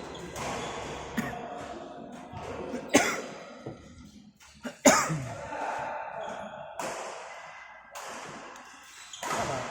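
Badminton rackets hitting a shuttlecock in a large hall: two loud, sharp hits about two seconds apart near the middle, with lighter hits around them and the echo of the hall after each.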